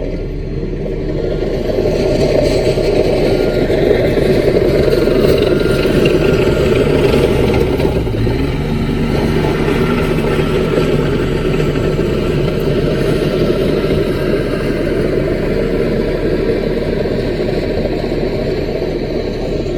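Diesel engine of a CAT mini crawler bulldozer running steadily at working speed, its note shifting about eight seconds in.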